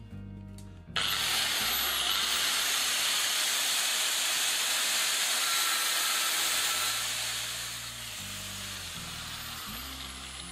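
Angle grinder switched on about a second in, its disc spinning up with a sharply rising whine, then grinding the metal kickstand base plate of a bicycle frame with a steady harsh hiss. After about seven seconds the grinding eases off and the disc winds down with a slowly falling whine.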